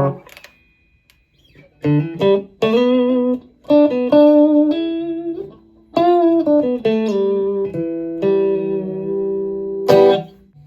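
Clean electric guitar played through a compressor pedal: picked notes and short melodic phrases, starting about two seconds in after a brief pause, with a louder strummed chord near the end.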